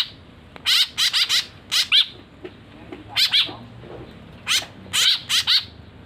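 Young caged birds giving short, harsh begging calls in quick clusters of two or three as they are hand-fed from a stick, about a dozen calls in all.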